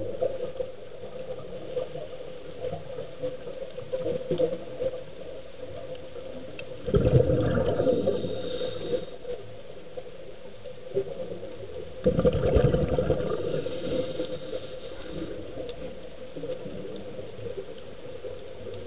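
Underwater breathing of a scuba diver: two bursts of exhaled bubbles rushing from the regulator, about seven and twelve seconds in, each lasting a second or two. A steady low hum and faint hiss fill the gaps between breaths.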